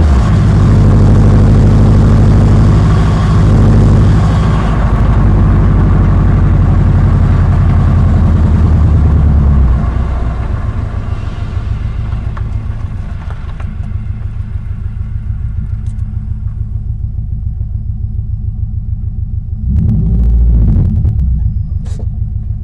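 2005 Subaru Impreza RS running, its flat-four engine and drivetrain giving a loud low rumble. The rumble drops off about ten seconds in and swells briefly near the end, with a few sharp clicks close to the end.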